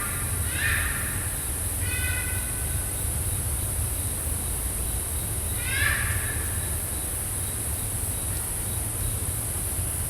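A few short, high-pitched animal calls in the woods: three in all, about a second in, two seconds in and near six seconds in, the last one sliding downward in pitch. Underneath runs a steady high insect drone and a low rumble. The animal is not identified.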